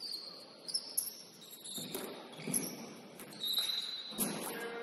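Basketball shoes squeaking on a hardwood gym floor in several short, high squeaks, among a few dull thumps.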